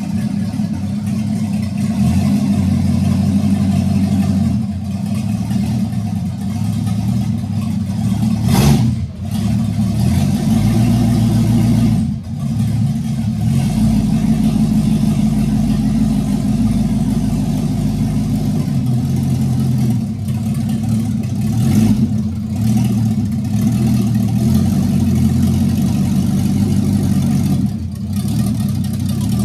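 The 1967 Chevy van's engine running as the van drives slowly under its own power, its note rising and falling with the throttle. The exhaust is not yet fully routed. A single sharp pop sounds about nine seconds in.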